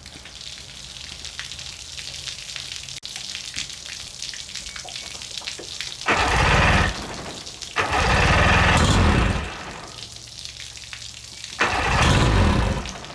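Water hissing from a garden hose feeding the outboard's flushing attachment, then three loud bursts of about a second each as the Mercury 50 hp outboard is started on the hose.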